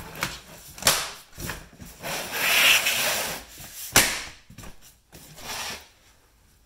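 Plastic lid being pressed and snapped onto a plastic storage tote: a sharp snap about a second in and another about four seconds in, with plastic rubbing and scraping between them.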